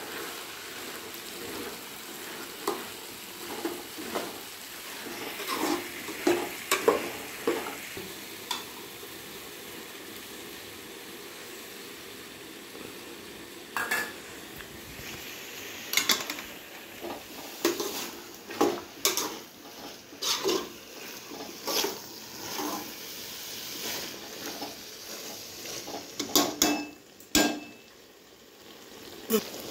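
Vegetables sizzling in oil in a large aluminium pot while a metal slotted spoon stirs and scrapes, clanking against the pot. The clanks come in a run over the first several seconds, give way to steady sizzling, then come thick again through the second half.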